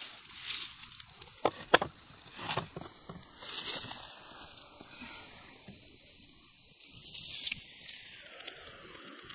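Insects droning in the forest with one steady high-pitched note that steps slightly higher about three-quarters of the way through, and a couple of sharp clicks about a second and a half in.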